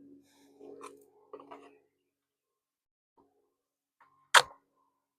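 Faint rustling and rubbing of hands working on a plastic heater box, then one sharp click about four seconds in.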